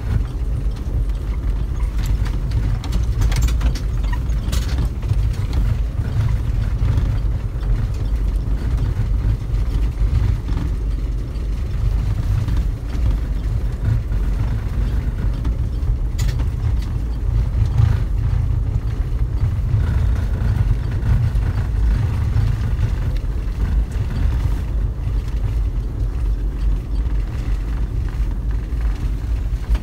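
Vehicle engine and running gear rumbling steadily, heard from inside the cab while driving through deep snow, with a few light clicks and rattles.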